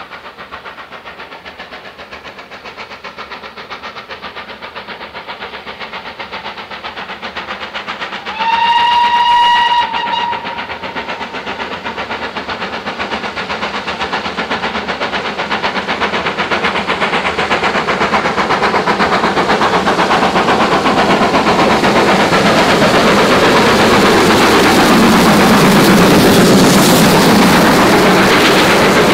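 GWR Manor class 4-6-0 steam locomotive No. 7812 'Erlestoke Manor' working a train, its steady exhaust beats growing louder as it approaches. It gives one whistle blast of about a second and a half about eight seconds in. Near the end the engine and its coaches pass close by, the running rumble and wheel clatter at their loudest.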